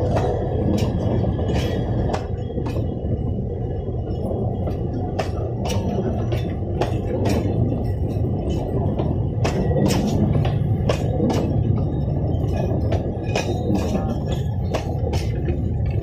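Alishan Forest Railway narrow-gauge train rolling slowly past close by. A steady low rumble, with frequent irregular clicks and clacks from the wheels on the track.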